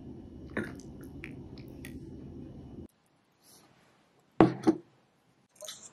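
A steady low hum with a few light clinks of a metal ladle against a ceramic bowl, cutting off about three seconds in. Then a ceramic bowl of soup is set down on a table: two loud knocks close together, and a light clatter near the end.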